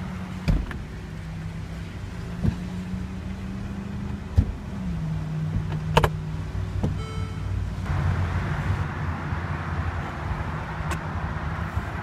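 Mercedes-Benz SL550's power retractable hardtop mechanism running: a steady motor hum that steps down in pitch about five seconds in, with scattered clicks and knocks.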